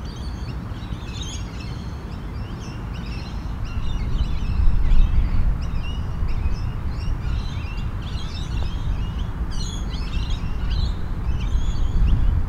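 Many small birds chirping and twittering continuously, over a low steady rumble.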